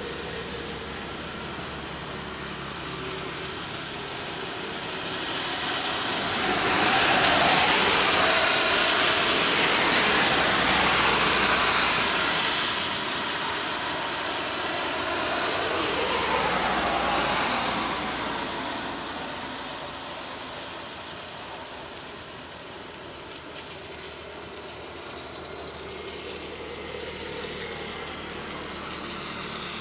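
A passing vehicle's noise swells up a few seconds in, stays loud for about ten seconds, then fades away over a steady background hiss.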